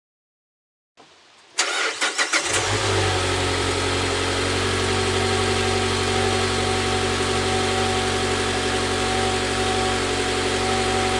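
Mazda 3's 2.5-litre four-cylinder engine, breathing through a K&N short ram intake, starting: a short burst of cranking about one and a half seconds in, then it catches and settles into a steady idle.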